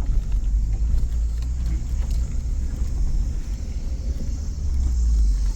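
Suzuki Jimny crawling in four-wheel-drive low range up a rough, rocky uphill track: a steady low rumble of engine and drivetrain, with a few light knocks about two seconds in.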